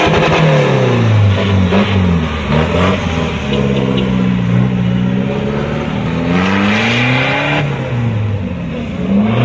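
Turbo-diesel pickup engine revving hard as the truck is driven off, its pitch falling and rising several times, with a rush of exhaust noise on the hardest pulls.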